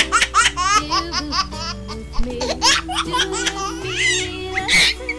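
A baby laughing in a fast run of giggles, dense at first, then thinning out with one last loud laugh near the end, over background music with sustained tones and a bass line.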